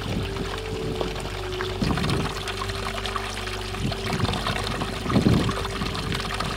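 Wind buffeting the camera microphone, a steady rushing noise with stronger low gusts about two seconds in and again about five seconds in.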